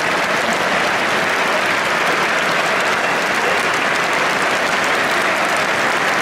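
Large football stadium crowd applauding steadily, a dense, even clapping.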